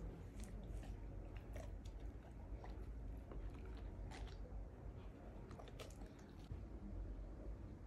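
German Shepherd chewing a piece of cheese: a quiet run of irregular wet clicks from its mouth and teeth that stops about six and a half seconds in.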